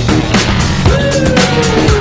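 Background music with a steady drum beat, and a held note that slides slowly down in pitch from about a second in.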